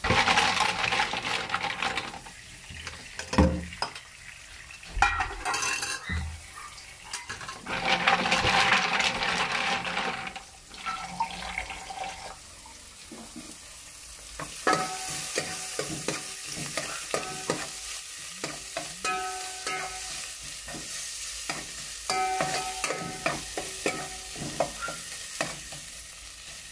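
Tap water running over mussels being rinsed in a basin at the start. Then garlic, onion and ginger sizzle as they sauté in a metal pot, with a metal spoon scraping and clicking against the pot in quick strokes through the second half.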